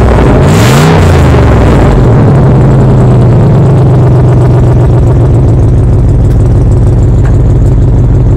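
Cadillac Seville STS Northstar V8 running loud with its entire exhaust removed, no catalytic converter or mufflers. It gives a brief rev in the first second or so, then settles back to a steady idle.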